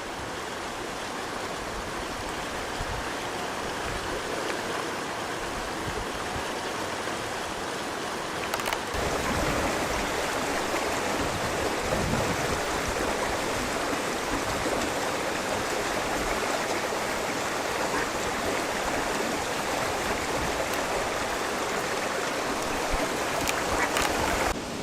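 Shallow mountain creek flowing over rocks, a steady rushing of water that gets louder about nine seconds in.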